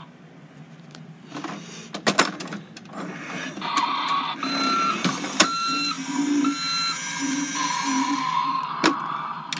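Electronic sound effects from a toy ambulance's small built-in speaker: a steady mechanical-sounding hum, with three short beeps in the middle. A few sharp clicks come through as well.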